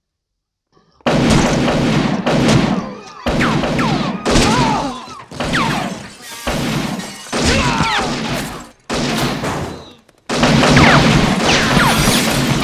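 Sudden rapid pistol gunfire breaking out about a second in after near silence, mixed with smashing plates and glassware as bullets hit the table. It comes in loud dense stretches with short lulls between them.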